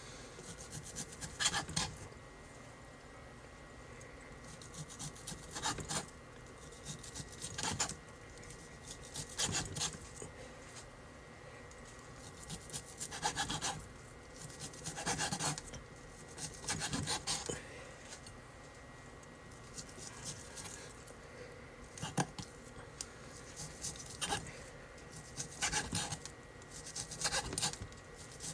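Chef's knife slicing raw beef on a wooden cutting board: repeated rasping sawing strokes through the meat, one every second or two, some ending in a light knock of the blade on the wood.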